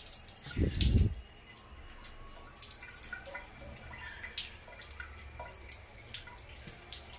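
Water from a bathroom tap running into a bunch of self-sealing water balloons as they fill, with scattered drips falling from the balloons onto the tiled floor. A dull thump about a second in.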